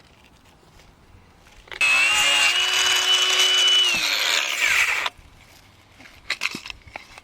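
A handheld power tool runs at a steady speed for about three seconds, then its pitch drops as it cuts off and winds down. A few light clicks follow.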